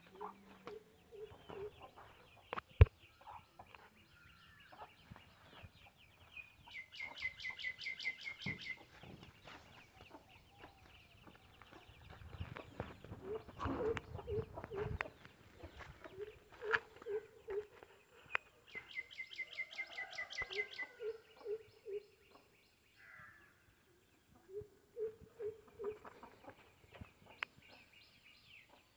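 Chickens clucking in short groups of low notes, while a bird twice gives a rapid run of high, evenly spaced notes lasting about two seconds. A single sharp click about three seconds in is the loudest sound.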